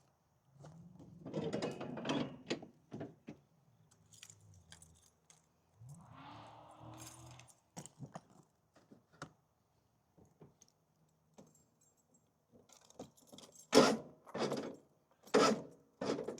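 Metal objects clinking and jangling, then four loud, sharp clanks in the last few seconds.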